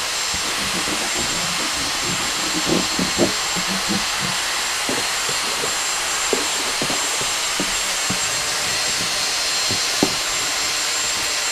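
Dyson V6 cordless handheld vacuum running steadily with a high whine, sucking up loose styrofoam packing beads through its hose attachment. Scattered light clicks and knocks come as the nozzle works among the styrofoam in a cardboard box.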